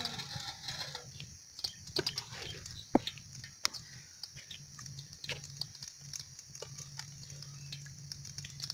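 Wood fire of dry sticks crackling, with irregular sharp pops and snaps, the loudest about three seconds in, over a low steady hum.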